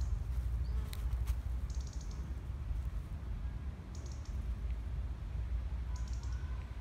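Outdoor background dominated by a low, fluctuating rumble on the microphone, with a short high buzzy chirp about every two seconds and a couple of light clicks about a second in.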